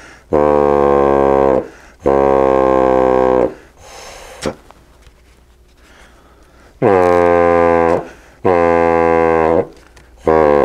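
Homemade glove kazoo (a plastic bottle with a disposable safety glove stretched over the end, blown through a side straw) giving four low buzzing honks as the glove membrane vibrates. Each honk lasts about a second and a half; they come in two pairs with a pause of a few seconds between the pairs, and the last two bend in pitch at their ends.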